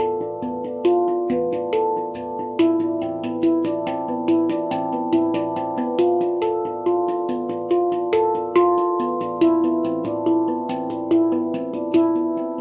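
A2 Baopan handpan played with the hands: a steady stream of struck notes in a regular pulse. Each note rings on and overlaps the next, giving deep, sustained metallic tones.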